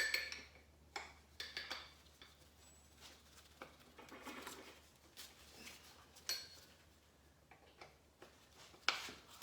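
Scattered light metallic clicks and clinks of hand tools on bolts and engine parts as an Allen-bolted part is unbolted from a Ford 5.0 V8.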